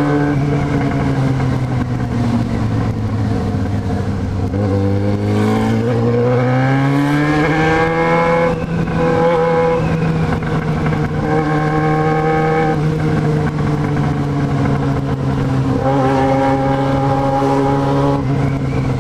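Yamaha XJ6's 600 cc inline-four engine running under way: the engine note sinks over the first few seconds, climbs as the bike accelerates around five to eight seconds in, then holds a steady cruise.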